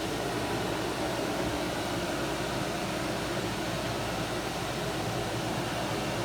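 Boat cabin air conditioning running steadily: an even hiss of blown air with a low hum underneath.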